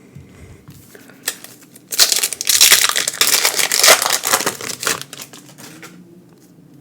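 Foil booster pack wrapper crinkling and crumpling in hands for about three seconds, starting about two seconds in, after a few light ticks.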